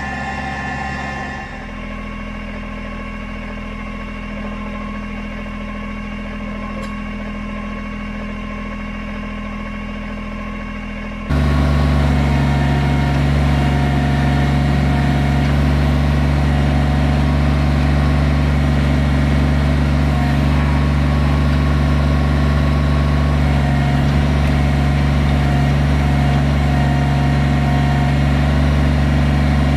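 Kubota BX23S compact tractor's three-cylinder diesel engine running steadily while the backhoe digs. The engine sound jumps much louder about eleven seconds in and then holds steady.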